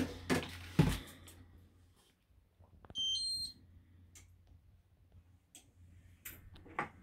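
Induction hob touch controls beeping: a short run of electronic tones stepping between pitches about three seconds in, the hob's switch-on chime, followed by a few faint taps on the glass control panel. A couple of knocks in the first second as the glass pan lid is put aside.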